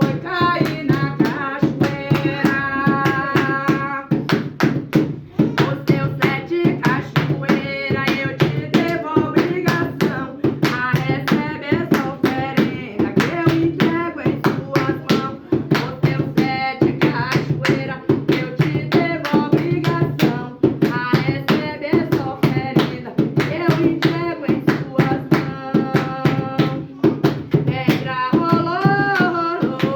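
Devotional chant (ponto) for Exu sung over a steady beat of hand claps and drum strokes.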